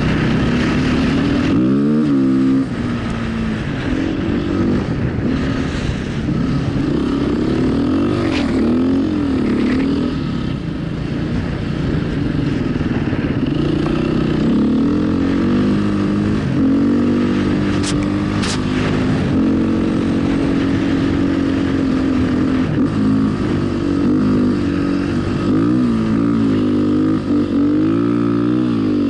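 Off-road motorcycle engine running hard, its revs climbing and falling again and again as the rider works the throttle and shifts gears across sand and stones. Two sharp ticks come about two-thirds of the way through.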